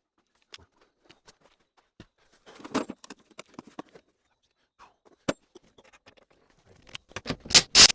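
Scattered clicks, knocks and rustling of hands working with tools and wiring inside a vehicle cabin. There is a busier patch of rustle about a third of the way in, one sharp click past the middle, and the loudest knocks and clatter near the end.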